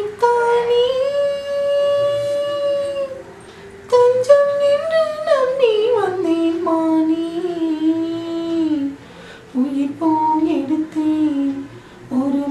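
A woman singing solo in long held notes. The first note is held steady, then the melody slides slowly down to a lower pitch, with brief pauses about three seconds in and again near the end.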